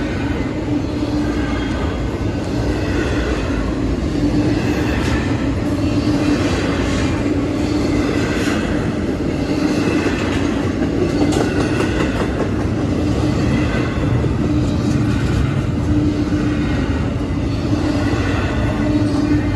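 Double-stack intermodal freight train's well cars rolling past at speed: a steady, loud rumble with wheel clatter on the rails.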